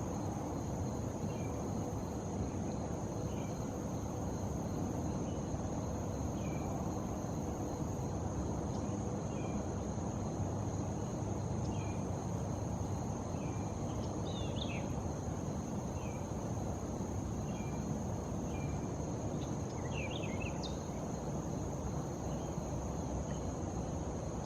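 Steady high-pitched insect drone, with a bird giving a short chirp every second or two and a few brighter, more varied bird calls midway and near the end, over steady low background noise.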